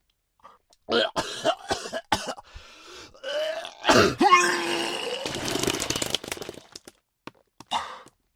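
A person retching and vomiting: several short gagging heaves, then about four seconds in a loud retch with the voice sliding in pitch, followed by about two seconds of noisy spewing, and one more gag near the end.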